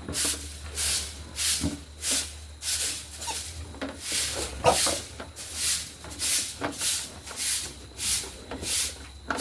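Stiff broom sweeping the floor of a pig pen in quick, even strokes, about two a second.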